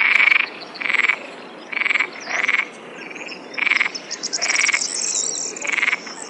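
Frog calling repeatedly: about seven short, rattling pulsed croaks, roughly one a second, with fainter high-pitched chirping above them midway.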